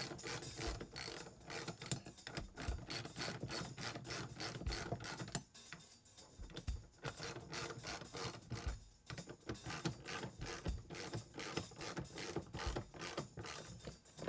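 Hand ratchet with an extension and 7/16 socket clicking rapidly as bolts are run down into a metal bracket, in runs of quick clicks with short pauses between strokes.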